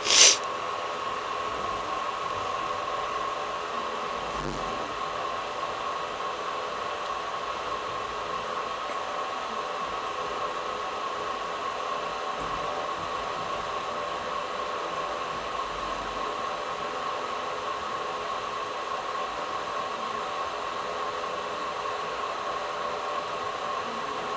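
Steady hiss and hum of an air-conditioned train coach in motion, with a constant whine running through it. A short loud knock comes right at the start.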